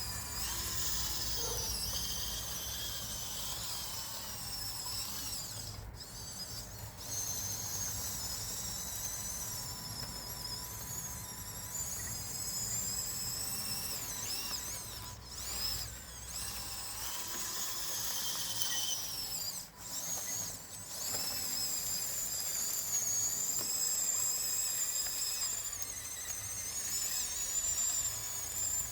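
Small electric motors and gearboxes of an RC model bulldozer whining as it drives and pushes sand. The high whine rises and falls in pitch with the throttle and stops for a moment several times.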